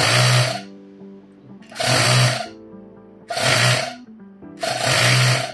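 Ferrex 12 V mini air compressor running, its small DC motor driving the piston, heard in repeated bursts about half a second long roughly every second and a half.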